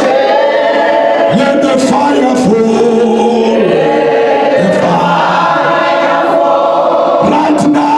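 Church congregation singing a gospel chorus together, many voices holding long notes that change pitch every second or so.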